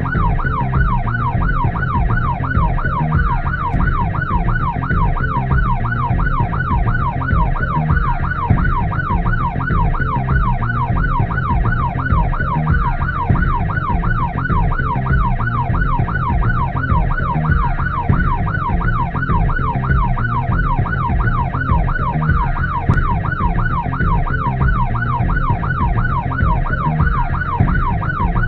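Emergency vehicle siren on a fast yelp, its pitch sweeping rapidly up and down about three times a second without a break, over a steady low rumble of vehicle and road noise.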